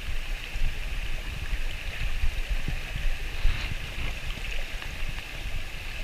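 River water flowing and babbling steadily over stones, with an irregular low rumble underneath.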